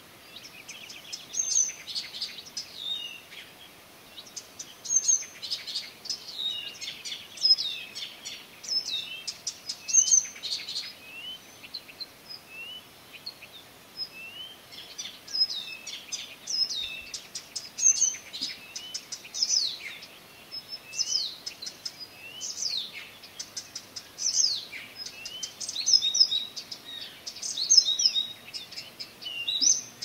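Songbirds singing at night: quick, varied phrases of high chirps, trills and downward-sliding notes, one phrase following another every second or two.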